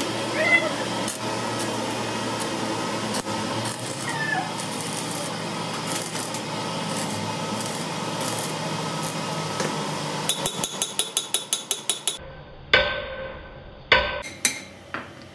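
Arc (stick) welding crackling steadily as a rod is welded onto a broken stud in a wheel hub, to use as a handle for extracting it. After about ten seconds the crackle stops, a quick run of light taps follows, and then come a few sharp hammer blows on the welded rod, the metal ringing after each.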